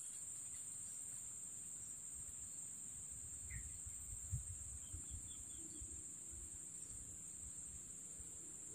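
Steady, high-pitched drone of forest insects, one unbroken shrill band, with a few faint low thumps near the middle.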